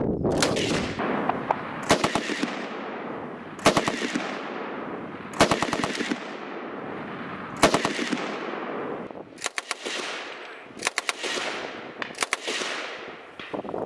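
ZB30 7.92mm light machine gun firing about eight short bursts of a few rounds each, one every second and a half to two seconds. Each burst is followed by a long echoing decay.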